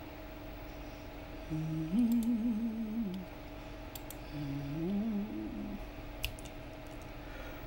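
A woman humming two short phrases of a tune, stepping between a few notes, while a computer mouse clicks a few times as an exam answer is selected and submitted. A faint steady hum runs underneath.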